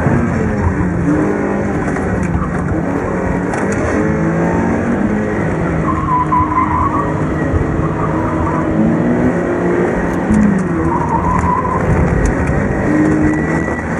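Inside a sports car driven hard through a tight coned course: the engine revs rise and fall with throttle and shifts, and the tyres squeal briefly in corners, about six seconds in and again near eleven seconds.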